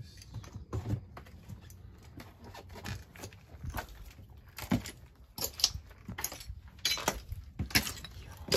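Footsteps crunching and scraping over rubble and broken debris, an irregular run of sharp crunches and clicks with a louder knock near the end.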